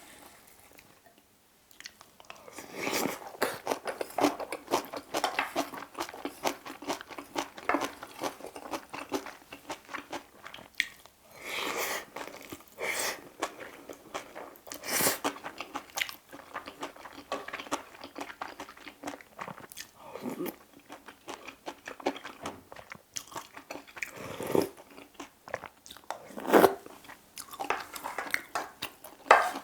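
Close-miked chewing and crunching of bibimbap with crisp seasoned vegetables, a steady run of wet, crackly bites and smacks that starts about two seconds in, with a few sharper, louder crunches.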